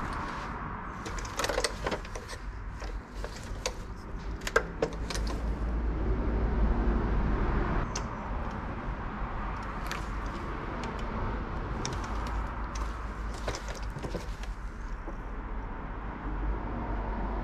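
A plastic digital bathroom scale being handled with gloved hands: scattered sharp clicks and knocks as it is turned over and gripped, over a steady low rumble.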